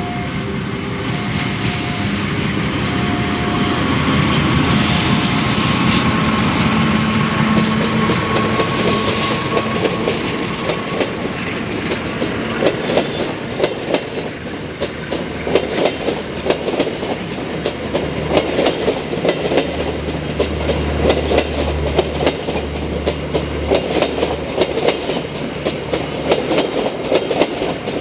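KAI CC 206 diesel-electric locomotive and its passenger coaches rolling past close by. As the coaches go by, the wheels clack in a steady rhythm over the rail joints.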